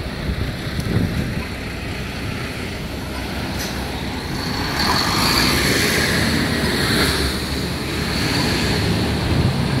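City street traffic: cars driving past on the road, swelling louder in the middle as vehicles pass close.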